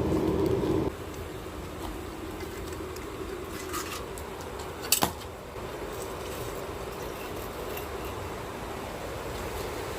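An electric power tool running steadily, as used to grind and polish a rusty hammer. It is louder for about the first second, then drops suddenly to a quieter steady run, with a sharp click about halfway through.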